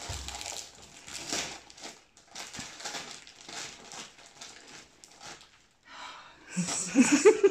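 Gift-wrapping paper being torn and crumpled by hand as a soft parcel is unwrapped, an irregular run of rustles and crackles. Near the end there is a short, louder burst of voice.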